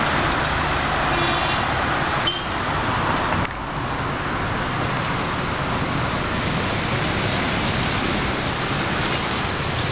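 Steady city traffic and road noise, the engines and tyres of cars moving along a street, heard from a moving vehicle.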